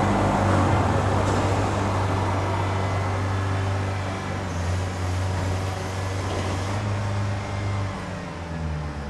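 Zamboni ice resurfacer's engine running with a steady low hum, slowly getting quieter, its note dropping near the end.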